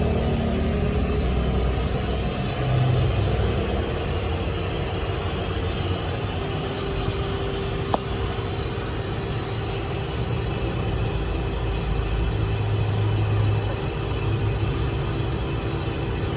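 Motor vehicle engine running unevenly, swelling in loudness about three seconds in and again near the end, with one sharp click about halfway. It is shown as the symptom of a faulty signal cable.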